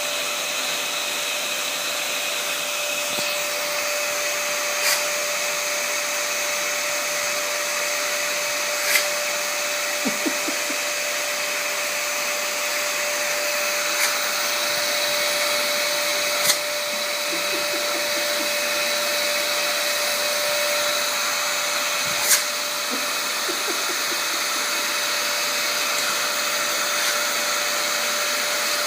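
Vacuum cleaner running steadily, its motor giving an even rushing noise with a constant hum tone. About six sharp knocks or clacks come at irregular moments over it.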